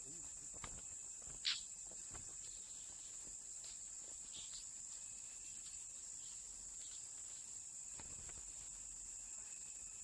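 Steady high-pitched drone of insects in the undergrowth, with one short sharp sound about one and a half seconds in and a few faint high chirps near the middle.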